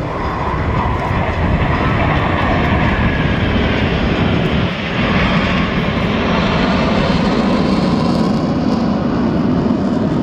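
Jet engine noise from a formation of Black Eagles T-50B jets flying overhead, each powered by a single turbofan. The noise is loud and steady, with a brief dip a little before halfway and faint slow downward pitch sweeps as the jets pass.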